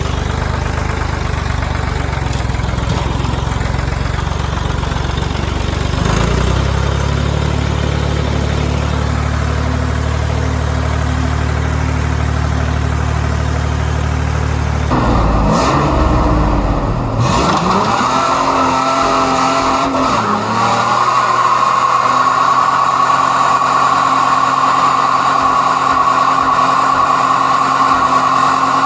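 Truck engine running at held revs, its pitch swinging up and down about 15 to 20 seconds in. After that a steady high-pitched whine and hiss carries on alongside it, as from a tire spinning against the ground.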